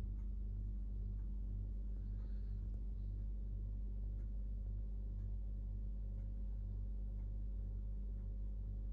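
A steady low hum with a faint pulsing throb and a few faint ticks.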